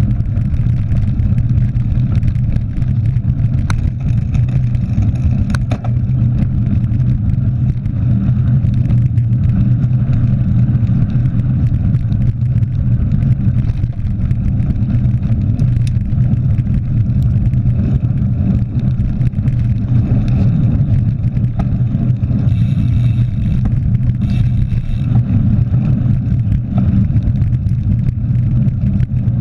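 Steady low rumble of a mountain bike rolling fast over a gravel forest road, picked up by a handlebar-mounted action camera: wind on the microphone mixed with tyre and frame vibration, with occasional clicks and rattles from the gravel and the bike.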